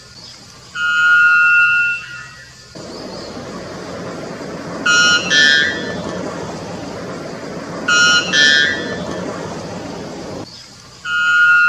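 White bellbird calling: a long, steady, horn-like note about a second in, then two quick double-note calls about three seconds apart over a steady background hiss, and another long note near the end.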